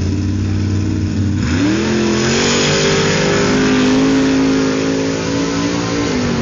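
Holden LJ Torana drag car's engine idling at the start line, then revving hard as it launches about a second and a half in and accelerating down the strip at high revs. The engine note drops away near the end.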